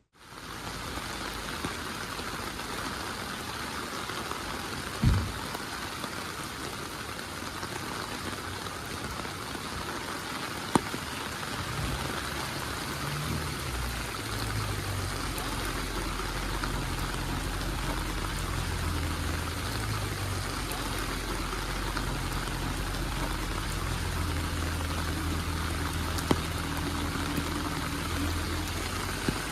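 Rain falling steadily, with three single sharp knocks. About halfway in, a low hum joins underneath the rain.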